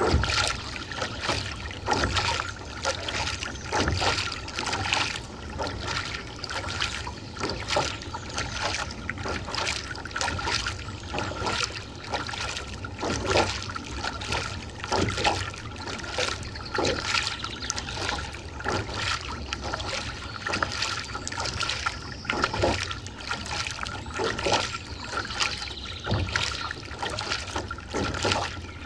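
Nordic Kayaks Squall being paddled with a Jantex Gamma Rio fibreglass wing paddle. The blades catch and leave the water in regular strokes, with water trickling and dripping off them, over a steady low rumble and a constant faint high tone.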